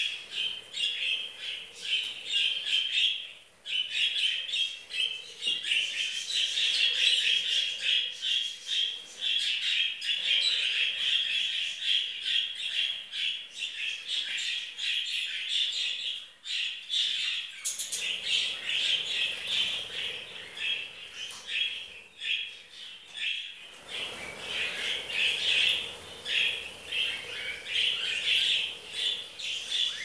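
A group of young budgerigars chirping and squawking almost without pause, a dense, high chatter of short calls that breaks off only briefly about three and a half seconds in.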